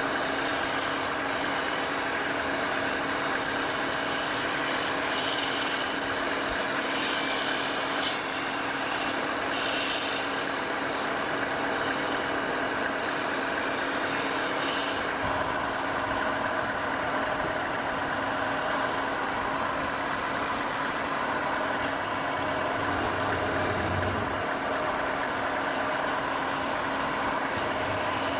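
Woodturning lathe running steadily with a constant motor hum, with a few brief scrapes in the first half.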